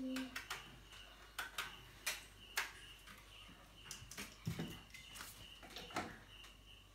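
Scattered clicks and knocks of cables, plugs and a small plastic set-top box being handled, with plugs pushed into sockets.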